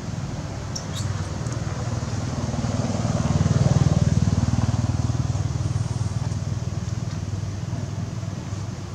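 A motor vehicle's engine passing by, growing louder to a peak about four seconds in and then fading away.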